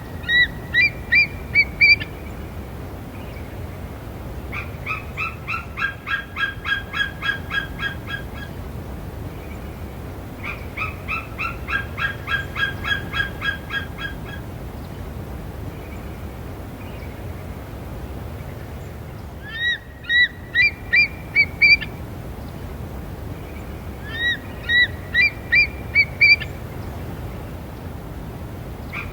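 Eagle calling in repeated series of high, whistled chittering notes. Two kinds of call alternate: short bursts of about six rising notes lasting two seconds, and longer runs of about a dozen quicker, evenly spaced notes lasting about four seconds.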